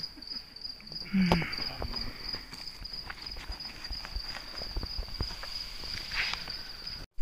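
Crickets chirping in a steady, high, pulsing trill. There is a brief low sound about a second in and a few soft clicks.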